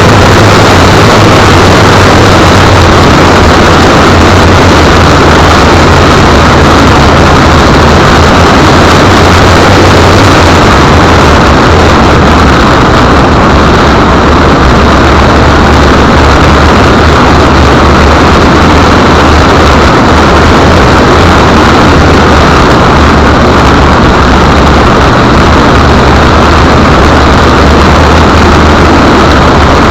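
The RC plane's motor, propeller and rushing air, picked up by a keyring camera fixed under the fuselage. It is a steady, very loud, unbroken rush with a low hum beneath, pushed to the edge of distortion.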